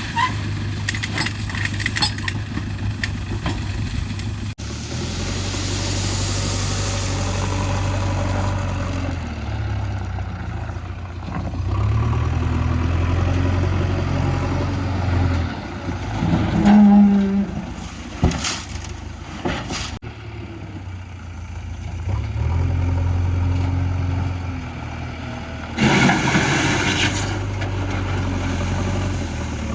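Heavy diesel engine running, its low hum rising and falling in stretches as the load changes. About halfway through there is a short, loud low-pitched tone, followed by a few knocks, and near the end a brief burst of hiss.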